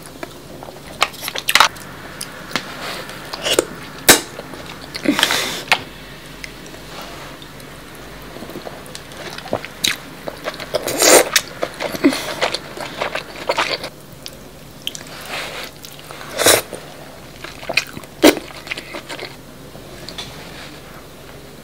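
Close-miked eating sounds: wet mouth smacks, slurps and chewing as sauce-coated king crab meat is bitten and sucked. Sharp smacks come irregularly a second or more apart, loudest about four and eleven seconds in.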